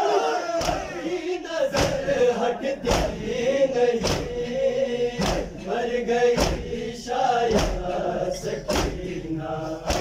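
A crowd of men chanting a Shia lament (noha) in unison, over a steady beat of hand slaps on chests (matam), close to two slaps a second.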